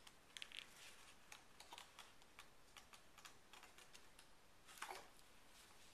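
Faint scattered clicks and paper rustles of a hardcover picture book's pages being handled and turned, with one louder page-flip rustle near the end.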